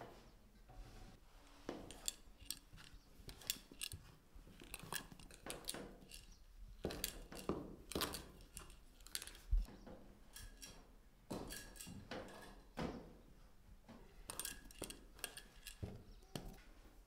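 Metal scissors cutting through soft yeast dough to divide it into pieces: irregular short snips and clicks, with dough being pulled apart on a wooden board.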